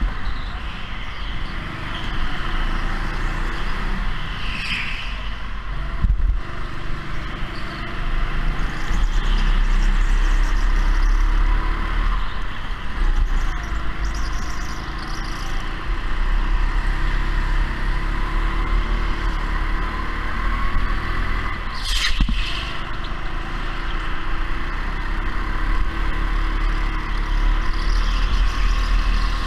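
Go-kart running at racing speed: steady motor and tyre noise with a deep rumble, pitch shifting a little as it goes. Two sharp knocks or scrapes cut through, one about six seconds in and a louder one about twenty-two seconds in.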